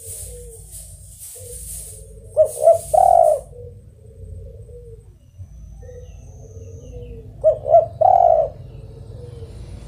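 Spotted dove (tekukur) cooing: two phrases about five seconds apart, each of two short notes followed by a longer, louder held coo, with fainter low coos in between.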